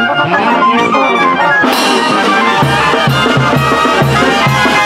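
Background music: a Oaxacan regional brass band tune, with a steady bass beat coming in about halfway through.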